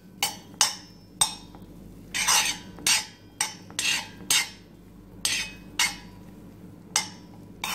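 Spoon scraping and clinking against a stainless steel pan as it pushes melting butter around: about a dozen short, irregular strokes, roughly two a second.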